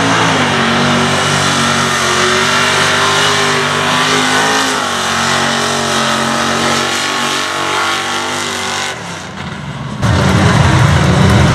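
Dodge mega truck's engine revved high and held there, with small steps in pitch and a dip about five seconds in, easing off near the nine-second mark. Near the end a louder, deeper engine note takes over suddenly.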